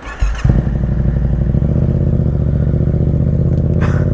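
2015 Yamaha MT-07's parallel-twin engine with an aftermarket Akrapovic exhaust starting up, catching about half a second in, then idling steadily.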